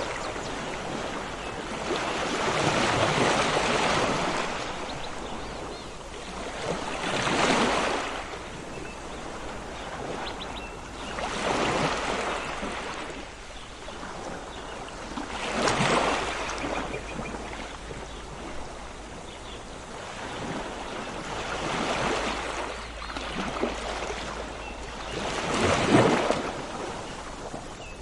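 Sea waves breaking on a shore, each surge rising and washing back about every four seconds, with faint short bird calls now and then.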